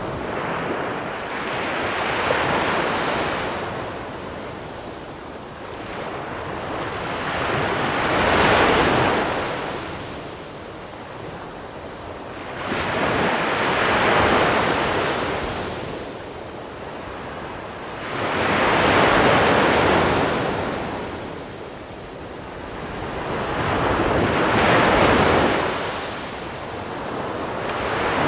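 Sea waves breaking and washing up over a shore of small pebbles. Five waves swell and ebb in a slow rhythm, about one every five to six seconds.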